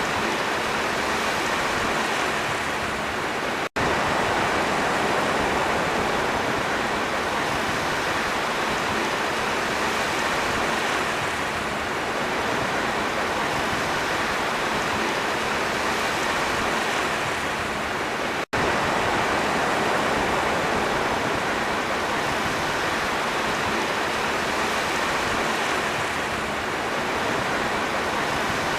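Sea waves washing in a continuous, steady rush of surf that swells and eases gently, broken twice by a split-second gap in the sound.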